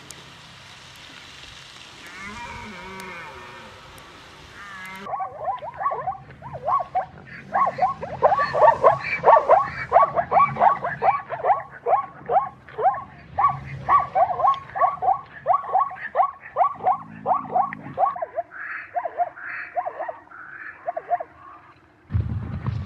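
An animal calling in a long rapid series of short, falling calls, several a second, starting after a few seconds of hiss and thinning out near the end.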